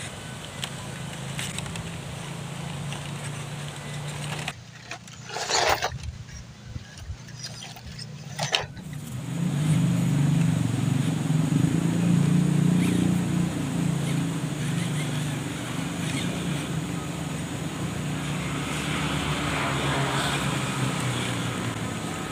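Electric motors and gear drives of radio-controlled crawler trucks running steadily as the trucks creep over dry dirt and rocks, louder from about nine seconds in.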